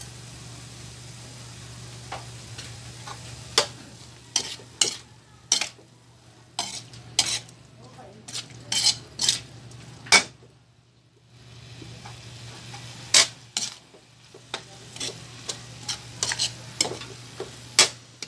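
Metal spatula scraping and knocking against an aluminium wok as ground pork with mushrooms and red bell pepper is stirred, over a soft sizzle of frying. The clatters start about three and a half seconds in and come irregularly, with a short pause about ten seconds in.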